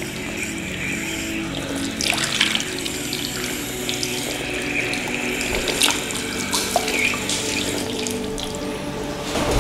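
Water being poured and splashing as an arm is washed by hand, an uneven run of water with scattered sharper splashes and drips.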